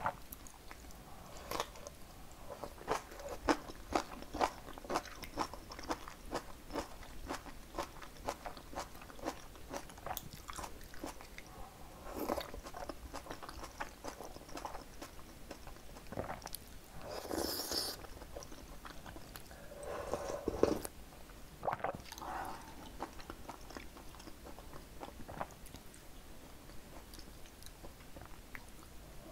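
Close-miked eating of fresh napa cabbage kimchi: rapid crisp crunches as it is bitten and chewed, thinning out partway through, with a few louder wet smacking patches.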